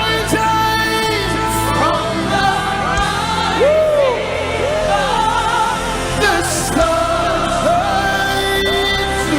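Live gospel worship music: a singing voice with gliding, held notes over steady sustained band accompaniment.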